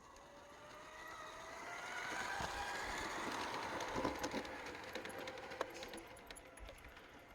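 Whine of an Axial SCX24 micro crawler's small electric motor, climbing in pitch for about three seconds, then dropping away, with scattered light clicks and knocks.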